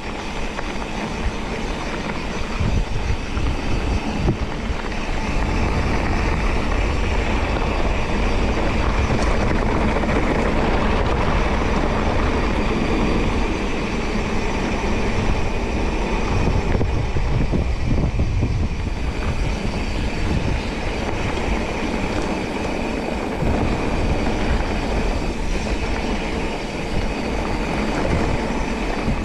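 Mountain bike being ridden along a trail: a steady, dense rush of riding noise and rattle with a heavy low rumble, unbroken throughout.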